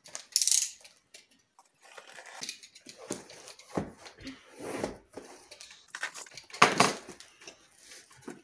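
A cardboard parcel being cut open and unpacked: the cutting tool scraping through the packing tape, then the box flaps pulled open and paper packing material rustling and crinkling in a series of short, irregular scrapes, loudest a little past halfway.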